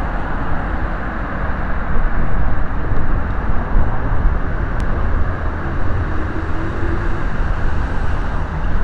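Steady rush of wind on the microphone and road noise from an electric bike being ridden along a road, deepest in the low range.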